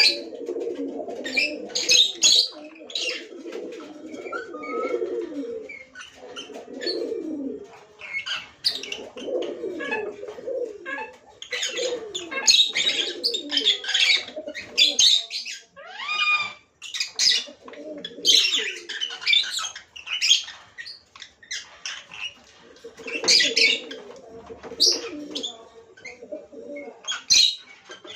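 Pet lovebirds chattering: quick bursts of sharp, high chirps over a lower warbling that comes and goes.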